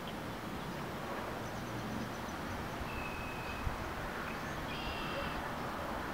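Outdoor ambience: a steady background rush with a few faint, thin bird calls, a short trill about one and a half seconds in and whistled notes around three and five seconds in, and one small tick near the middle.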